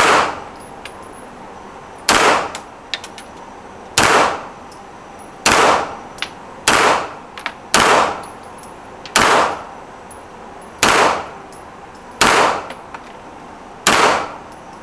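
Ten single shots from an FX9 9mm pistol-calibre carbine, fired one at a time about every one and a half seconds, each echoing briefly off the concrete walls of an indoor range. Faint ticks fall between some of the shots.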